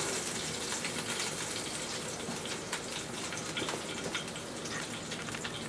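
Leftover fat sizzling and crackling in a hot, empty frying pan just off the heat after searing a steak, a steady hiss with faint pops that slowly dies down.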